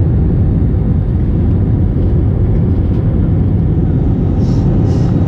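Steady low rumble of a jet airliner's engines and airflow heard inside the cabin from a window seat over the wing, during the descent to land. Two faint, brief hisses come near the end.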